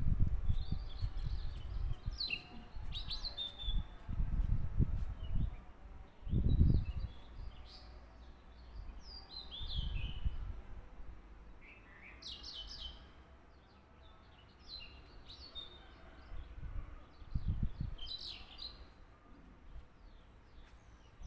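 Small birds chirping on and off in the background. Low thuds and rustles come from paper being folded and handled on a tabletop, the loudest about a third of the way in.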